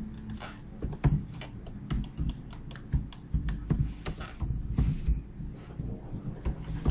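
Typing on a computer keyboard: irregular keystroke clicks, a few a second, as words are typed out.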